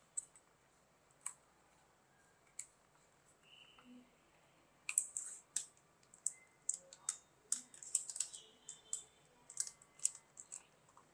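Thin plastic yogurt cup crackling and clicking as it is squeezed and scraped out with a wooden spatula. A few scattered clicks come first, then a quick, irregular run of sharp clicks from about five seconds in.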